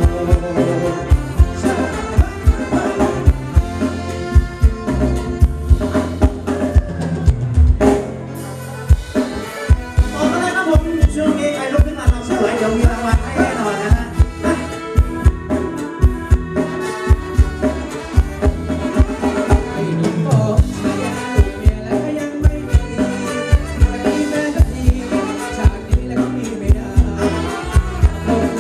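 Live ramwong dance band playing loudly through a PA: a drum kit keeps a steady dance beat under electric guitar and keyboard, with a singer. The drums drop out briefly about eight seconds in.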